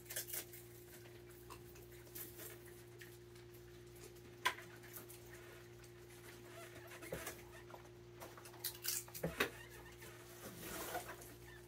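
Raccoons eating peanuts in the shell: scattered soft crunches, clicks and taps, one sharper click about four and a half seconds in and a small cluster near the end, over a steady low hum.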